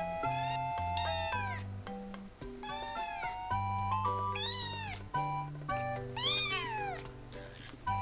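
A three-week-old kitten crying with high, thin meows, about four calls each rising and then falling in pitch, in protest at having its claws clipped. Light background music plays underneath.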